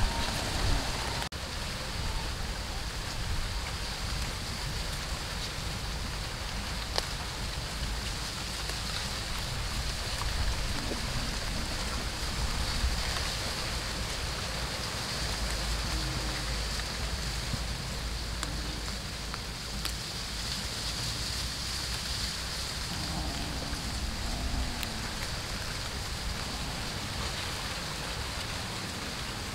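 Steady outdoor background noise: an even hiss with a constant high drone and a low rumble underneath, and a few faint ticks here and there.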